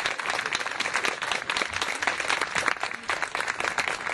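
Crowd applauding, many hands clapping together in a dense, steady patter.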